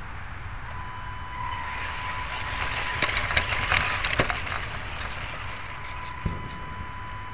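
Onboard sound of a Tamiya Wild Willy 2 electric RC car driving over leaf litter: a steady low rumble from the chassis and wheels under a thin steady whine. A run of crackles and knocks comes about three to four seconds in as it rolls over leaves and twigs, then a single knock a little later.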